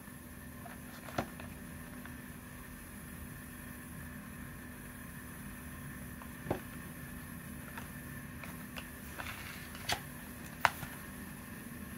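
Steady low background hum with a few sharp taps and clicks of fingers handling a cardboard box, the loudest near the end.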